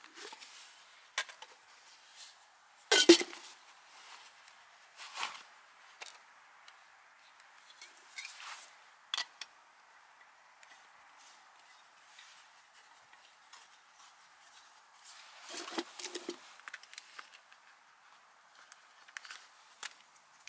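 Metal camp cookware and a canister stove being handled: scattered clinks and knocks of pot, lid and stove parts, the loudest about three seconds in and a small cluster around sixteen seconds.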